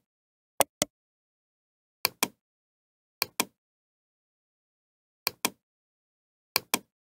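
Computer mouse clicking: five quick pairs of clicks, one to two seconds apart, with dead silence between.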